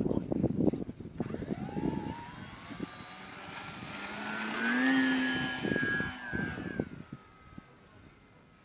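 Motor and propeller of a 1:5 scale RC Piper J-3 Cub model plane opening up for takeoff: a whine that rises in pitch, is loudest about five seconds in, then fades as the plane climbs away. Wind gusts on the microphone at the start and again around six to seven seconds.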